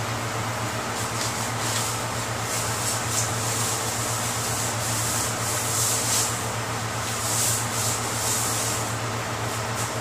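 Tack cloth wiped over a car's body panels to lift dust before painting: soft rubbing hiss in irregular strokes, over a steady low hum.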